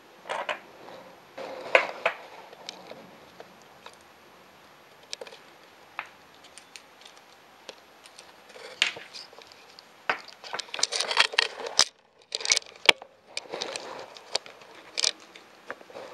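Handling noise from a large stainless-steel wristwatch being taken off its stand and strapped on: scattered clicks and rattles of the metal buckle and case, with rustling of the leather strap, busiest in the second half.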